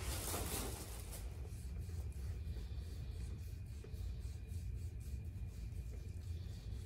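Antiseptic applicator scrubbed across the skin of the lower back in short repeated strokes, with a louder rustle in the first second, over a steady low room hum.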